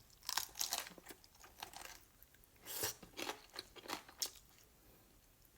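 Close-up crunching and chewing of crispy fried chicken coating, a run of short crackly bites in the first few seconds that fades out near the end.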